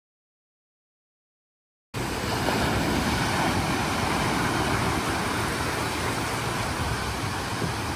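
Silence for the first two seconds, then a steady rushing noise of small waves breaking and washing up a sandy beach.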